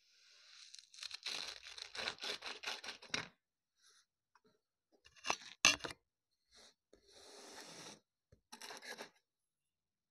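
Kinetic sand crunching and crumbling as a metal star-shaped cookie cutter is pressed and worked down into it. A quick run of crunchy strokes comes in the first three seconds, then one sharp, louder crackle about halfway, then softer grainy rustles.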